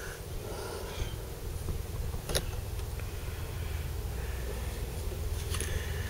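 Handling noise from a leather and Kydex knife sheath being turned in the hand: faint rubbing with one sharp click a little over two seconds in and a few lighter clicks near the end, over a low steady rumble.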